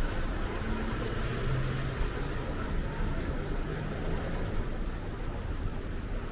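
Street ambience dominated by a garbage truck's engine running steadily, a low rumble with a faint hum under a hiss of street noise.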